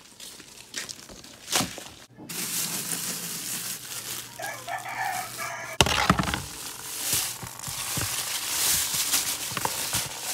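A rooster crows once, about four and a half seconds in, a call lasting about a second and a half. From about six seconds on the loudest sound is a hand rubbing a cloth over small fish in a metal basin.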